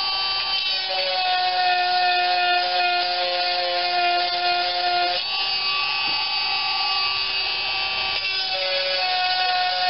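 12-volt chainsaw chain sharpener running with a steady whine while its stone grinds the chisel cutter teeth, the pitch shifting a few times through the grind.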